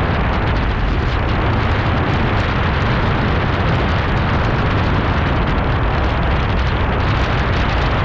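Loud, steady wind rushing and buffeting over the camera's microphone as a skydiver descends under an open parachute canopy.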